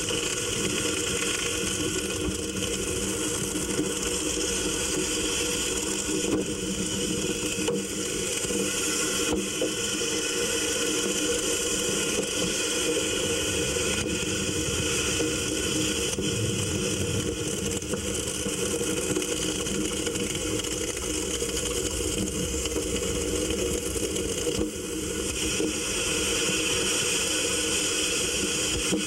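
A steady, unchanging mechanical drone with a constant hiss, with a brief dip about three-quarters of the way through.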